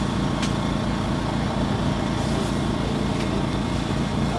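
A steady, low engine-like hum, with a couple of faint ticks over it.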